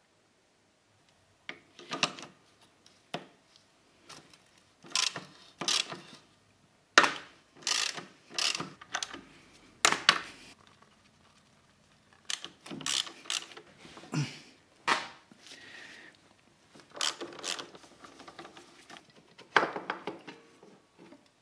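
Hand tools working on motorcycle front brake calipers: a string of short bursts of mechanical clicking and knocking, with brief near-silent gaps between them.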